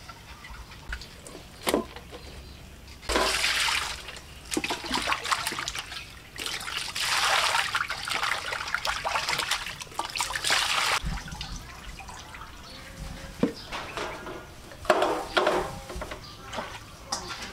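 Water sloshing and splashing in a stainless steel basin as hands wash and squeeze food in it, in bursts of a few seconds, with a few sharp knocks between them.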